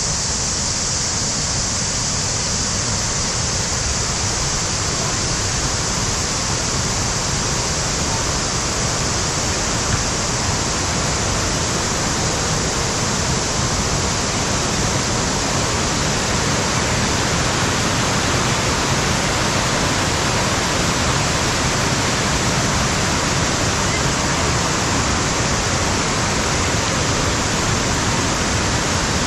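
Waterfall: a steady rush of falling water that does not let up.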